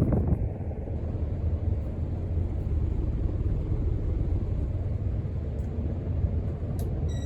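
Casablanca Four Seasons ceiling fan running at speed 6, its airflow buffeting the microphone as a steady low rumble. A short electronic beep sounds at the very end.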